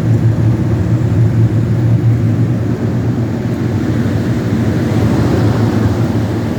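Walk-in cooler evaporator fans running, a steady low hum with rushing air as the unit circulates cold air.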